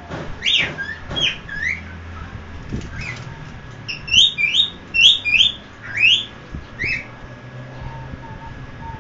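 Cockatiel chirping: short, sharp calls, a few in the first two seconds, then a quick run of about five around four seconds in and two more near the seven-second mark.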